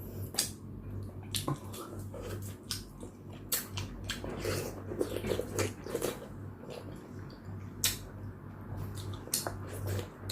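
Close-miked eating: chewing and wet mouth clicks and smacks over chicken and soup, in an irregular string of sharp clicks. A steady low hum runs underneath.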